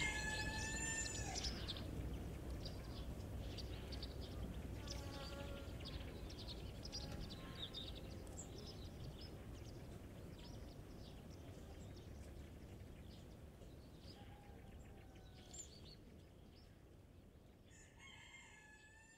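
Roosters crowing: one crow ends about a second in and another starts near the end, with fainter short calls and chirps from the flock between them and a low rumble underneath. The whole sound grows steadily quieter.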